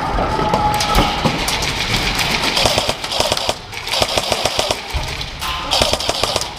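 Airsoft guns firing rapid bursts of shots, several bursts in a row.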